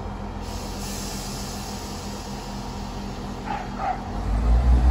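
Class 158 diesel multiple unit's underfloor diesel engines running at a platform stop, with an air hiss starting about half a second in. The engine note swells loudly near the end as the engines power up. Two short high calls come just before the swell.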